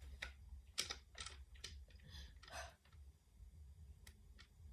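Faint, scattered clicks and light taps of small objects being handled, about a dozen in all, over a low steady hum.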